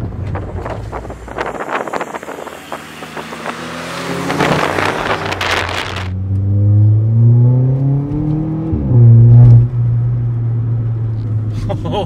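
Car engine heard from inside the cabin, pulling hard with its note rising through the revs. After a cut, a Volkswagen Polo GT TSI with a Stage 2 remap, downpipe and performance exhaust accelerates again. Its engine note climbs, then drops sharply at a quick dual-clutch (DSG) upshift about nine seconds in, and the engine is loudest just after the shift.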